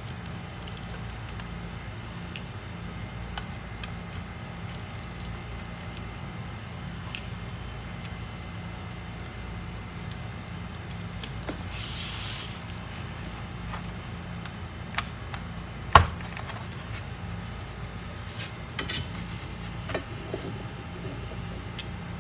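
Small tools and laptop parts being handled on a workbench: scattered light clicks, taps and rubbing, with one sharp click about sixteen seconds in, over a steady low hum.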